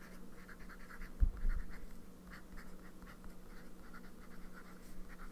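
Sailor Pro Gear Slim fountain pen with a 14-karat gold medium nib scratching over notepad paper in many short strokes as words are written, with the light feedback of a Sailor nib. A single dull thump about a second in.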